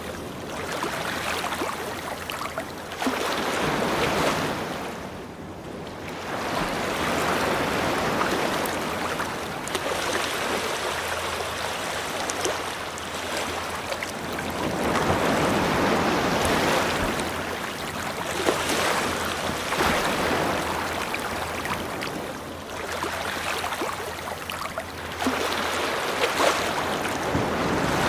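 Ocean waves breaking and washing up a beach, the surf swelling and falling back every few seconds.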